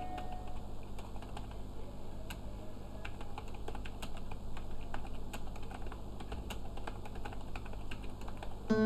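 Typing on a computer keyboard: a quick, uneven run of key clicks. Music comes back in right at the end.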